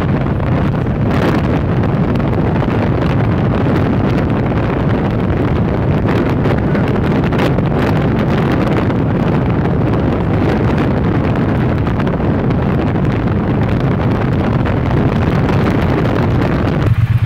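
Wind buffeting the microphone while riding a 2017 Triumph Bonneville T120, with its 1200 cc parallel-twin engine running underneath. Near the end the wind drops away and the engine idles with an even pulse.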